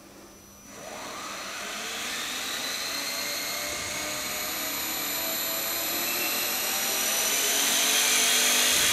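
Small DC motor spinning up after power-on, starting about a second in with a whine that rises steadily in pitch and grows louder over several seconds. A steady high-pitched tone sounds alongside it. The motor is powered through a single wire by a resonant, pulse-driven automotive ignition-coil transmitter.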